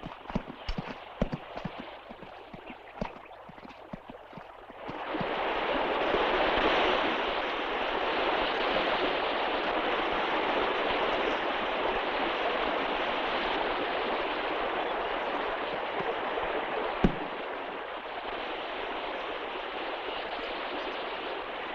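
Horse hooves clip-clopping for the first few seconds, fading away. Then the steady rush of river water cuts in suddenly and carries on, with a single sharp knock partway through.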